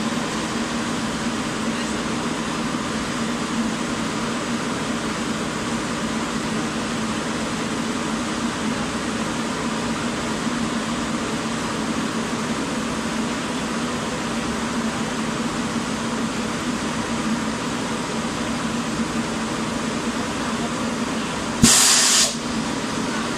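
Powder coating spray booth running, its automatic guns spraying powder: a steady machine hum with a constant hiss. Near the end a loud, sharp hiss lasts under a second.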